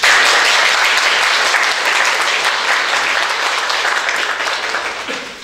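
Applause from a roomful of seated people clapping their hands. It starts abruptly and tapers off near the end.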